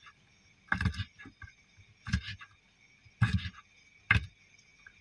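Kitchen knife chopping long beans on a wooden cutting board: a few separate sharp chops, roughly one a second.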